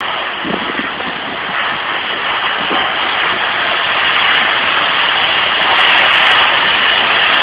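15,000 psi water jetting lance blasting a surface: a loud, steady rushing hiss of high-pressure water that cuts in abruptly and grows slightly louder.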